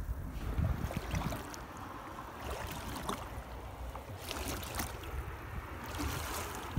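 Canoe paddle strokes dipping and splashing in calm river water, a stroke every couple of seconds, over a low rumble of wind on the microphone.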